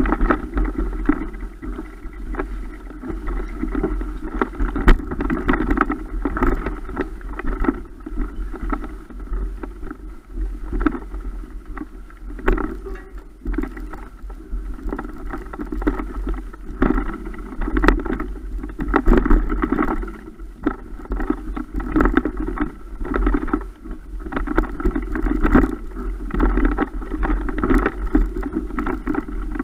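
Muffled rumbling with frequent sharp knocks and rattles from an action camera jolted in its waterproof housing, carried on a mountain bike over a rough, rocky trail.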